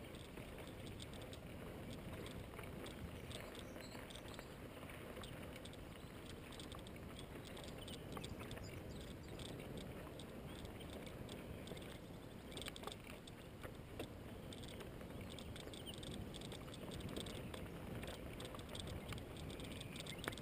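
Bicycle rolling over a rough dirt track: a steady rumble of tyres and wind on the microphone, with frequent small clicks and rattles from the bike over bumps and stones, a few louder ones about two-thirds of the way through.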